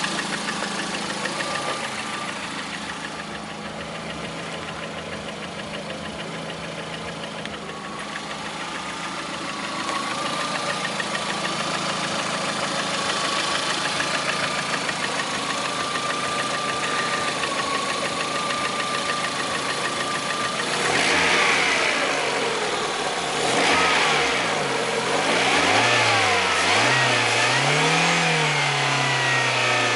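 A 2009 Lada Priora's 1.6-litre 16-valve VAZ-21126 engine idles with a rapid ticking knock. About two-thirds of the way in it is revved up and down several times. The knock set in some 500 km after Suprotec additive was put in, and the owner blames the additive.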